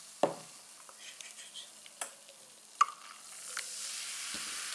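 Carbonated lemon-lime soda fizzing and crackling as heavy foam settles in a plastic cup, with a few sharp clicks of plastic being handled. The fizzing hiss grows louder near the end.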